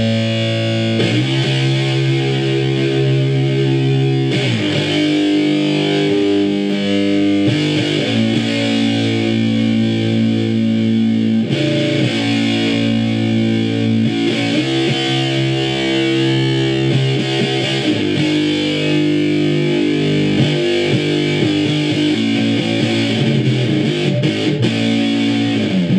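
Electric guitar played through a 1960s Univox Uni-Fuzz fuzz pedal into a hand-built 2-watt amplifier: thick, fuzz-distorted chords held for a few seconds each before changing. There is no mains buzz, because the pedal's power supply has been rebuilt to remove its notorious 120 Hz hum.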